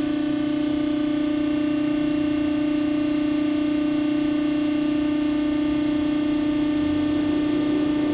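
Hydraulic pump of a 90-ton Pacific CNC hydraulic press brake running with a steady whine, with a second, slightly higher tone joining near the end.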